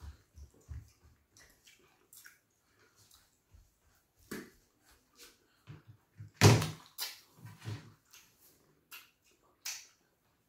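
Eating sounds of fufu and ogbono soup eaten by hand: scattered wet chewing and lip smacks, with one louder smack about six and a half seconds in.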